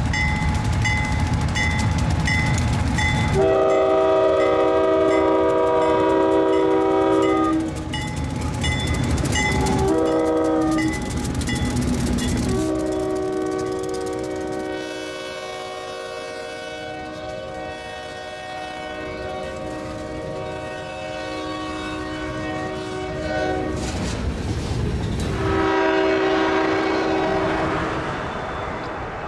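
Diesel freight locomotive passing close, its engine running and its bell ringing about twice a second. Then its multi-chime horn sounds the grade-crossing signal: two long blasts, a short one and a long one that fades as the train pulls away. One more long blast comes near the end.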